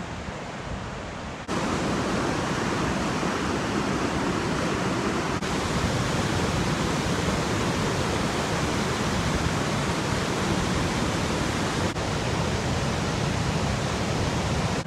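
Rushing water of river rapids: a steady, even rush that gets louder about a second and a half in, with two brief dips later on.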